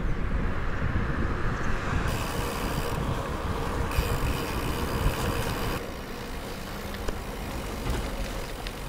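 Wind rumbling on an action camera's microphone while cycling along a road, mixed with road noise. The sound changes abruptly a few times as the shots change.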